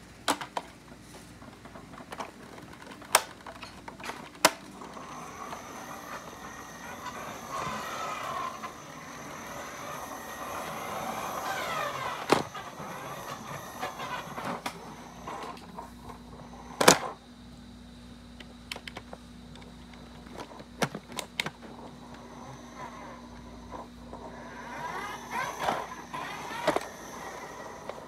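A toy mixer truck rolling across a tiled floor, its wheels and plastic body rattling, with sharp knocks as it bumps into things and a whine that rises and falls a few times.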